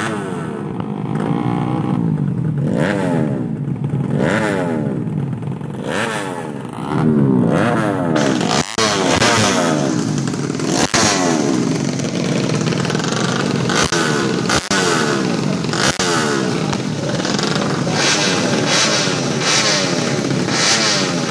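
Tuned 130cc four-stroke underbone drag bike engines revving hard, their pitch repeatedly climbing and falling back every second or so. About eight seconds in the sound grows louder and denser, with a few brief sharp cut-outs.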